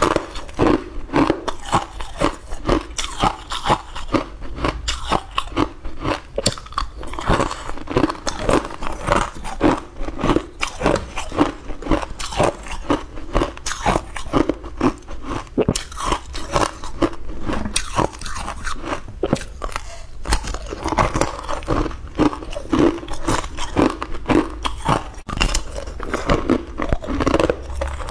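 Green frozen ice cubes being bitten and chewed close to a clip-on microphone: a continuous run of crunches and crackles, several a second.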